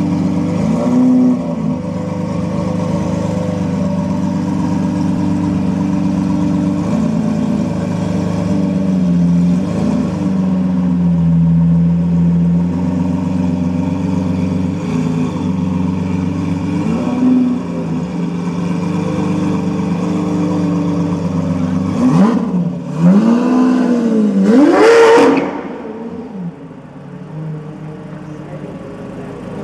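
Lamborghini Murcielago V12 idling with a few short throttle blips. About 22 seconds in, an engine is revved hard twice, each rev rising and falling in pitch. A quieter engine idle follows near the end.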